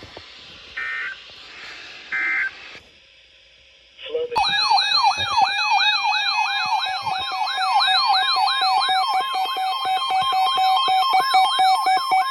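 Emergency Alert System broadcast tones: two short electronic data bursts, then after a pause a loud electronic siren-like alert tone that sweeps rapidly up and down, about two to three times a second, over steady tones, warning of a new severe thunderstorm warning.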